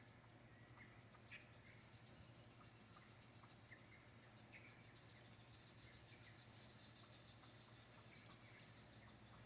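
Faint natural ambience: a steady, high, pulsing insect trill with a few short bird chirps scattered through it.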